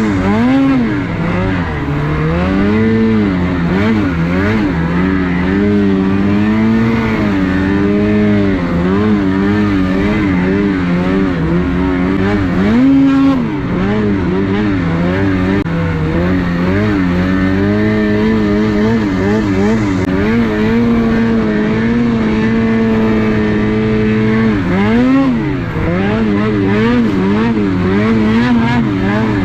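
Snowmobile engine running loud under constant throttle changes. Its pitch rises and falls every second or two, holds fairly steady for a stretch past the middle, then swings again near the end.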